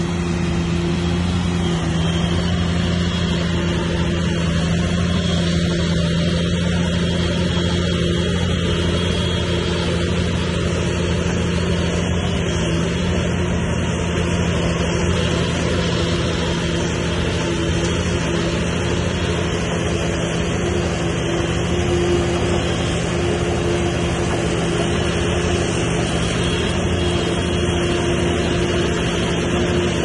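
Bulldozer's diesel engine running steadily, a constant drone.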